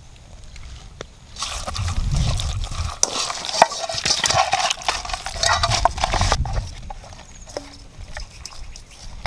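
Hands rubbing salt and a dark sauce into a raw whole chicken in a metal wok: wet rubbing with many small clicks. It starts about a second and a half in and eases off after about six seconds.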